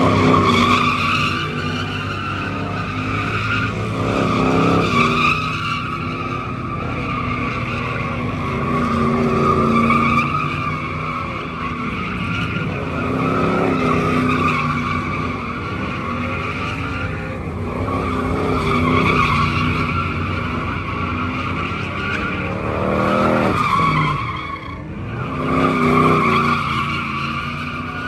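Dodge Ram pickup doing donuts, its rear tyres squealing without a break over an engine held at high revs. The engine swells and eases every few seconds, with a brief lull near the end before it picks up again.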